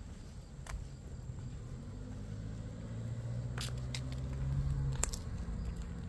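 A vehicle passing on the street: a low engine hum builds to its loudest about five seconds in, then falls away, with a few light clicks of footsteps.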